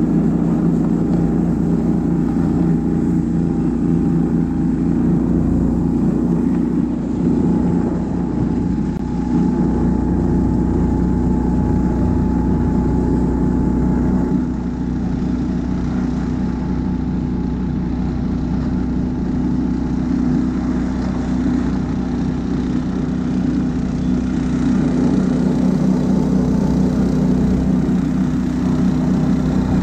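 Husky motorized snow tug's engine running steadily at a constant pitch while it tows a sled with a passenger over snow.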